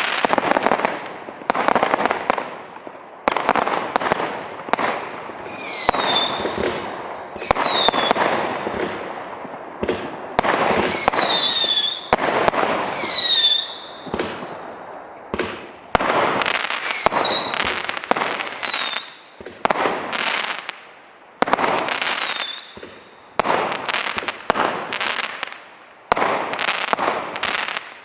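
A 504-shot, 0.6-inch fireworks cake firing rapid volleys of shots that crackle as they die away. Several whistling shots fall in pitch, some of them in quick pairs.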